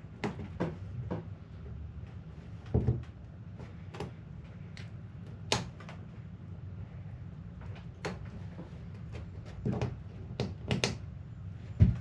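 Irregular knocks and clicks of tools and parts being handled during work on a plastic kayak hull, a dozen or so scattered through, over a faint low hum.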